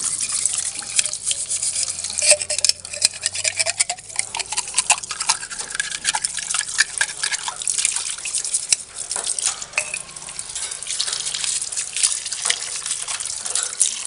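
Tap water running in a stream over a clear plastic bird drinking tube and splashing onto the birdcage's plastic base tray, while a small brush scrubs inside the tube, with many small knocks and splashes.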